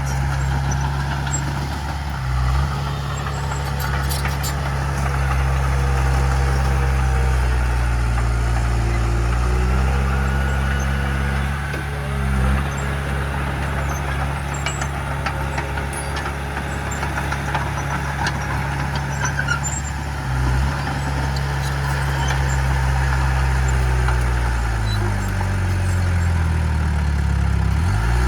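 Heavy diesel engine of earthmoving equipment running under load, its revs dipping and climbing again several times.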